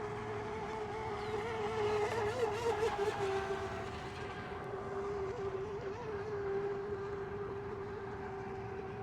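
Radio-controlled racing boats' engines running on the water, a steady high whine whose pitch wavers and which grows louder for a second or so about two seconds in, as a boat passes closer.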